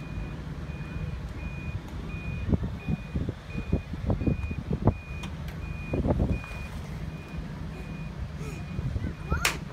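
An electronic warning beeper, like a vehicle's reversing alarm, sounding one high tone evenly about every 0.7 seconds over a steady low hum. A few short, low bursts come between about 2.5 and 6.5 seconds in, and a brief sharp sound near the end.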